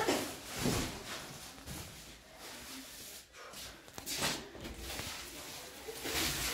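Woven plastic rice sacks being handled: rustling and dull thuds as a full sack is carried and set down on a pile on a tiled floor. The sound comes in a few separate bursts, at the start, about a second in, around four seconds in and near the end.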